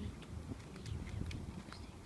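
Low rumble of a hand-held camera being carried while walking, with scattered light clicks of footsteps.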